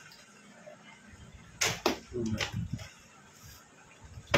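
Plastic water bottle being flipped: two sharp knocks about a second and a half in, then a louder clack as the tossed bottle comes down at the very end.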